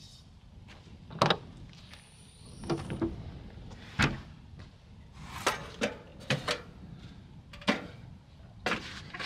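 About a dozen irregular sharp clicks and knocks from latches and hardware at the back of a pickup truck as the swing-out spare-tire carrier, the camper-shell hatch and the tailgate are opened, with a brief thin high tone about two seconds in.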